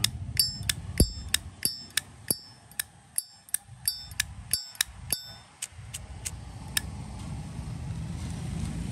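Zippo lighter's hinged metal lid flicked open and snapped shut over and over: a quick run of bright metallic clinks, about three a second, thinning out and fading after about five seconds. This clear ringing clink is the lid sound that collectors judge a Zippo by.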